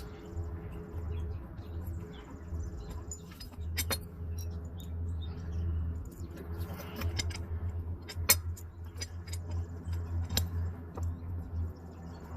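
Scattered sharp metallic clicks and clinks from tools and parts being handled while working on a walk-behind mower, one knock about 8 seconds in standing out. A steady low hum runs underneath.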